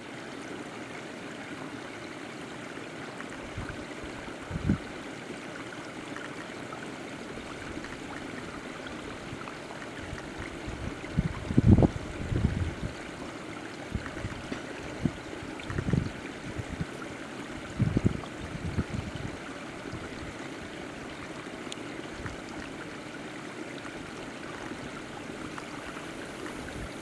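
Open water running and trickling steadily, with a few brief low thumps scattered through it, the loudest about halfway.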